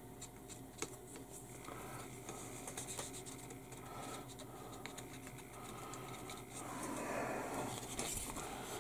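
Faint scratchy rubbing of a cotton swab wiping enamel panel-line wash across a plastic model fuselage, with small ticks from the plastic part being handled and a steady low hum.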